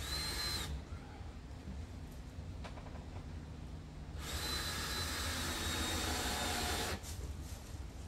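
Cordless drill-driver driving screws into a wooden stake in two runs: a short burst at the start and a longer, louder run of about three seconds beginning a little after four seconds in, each with a high motor whine.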